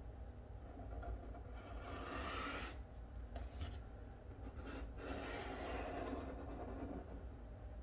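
A pen tip scratching along paper while tracing the edge of a file folder: two longer drawn strokes, about two seconds in and about five seconds in, with a couple of light taps between them.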